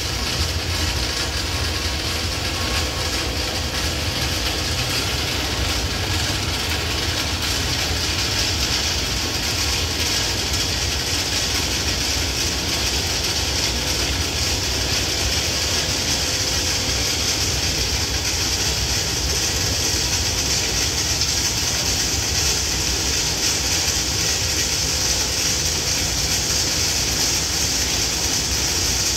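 Ballast regulator working along the track, sweeping leftover ballast stones off the rails. A steady engine rumble sits under a hiss of brushed stones that grows gradually louder as the machine draws nearer.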